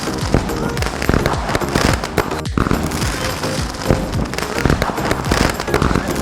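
Firecrackers going off in rapid, irregular bangs and cracks, with a brief break about two and a half seconds in.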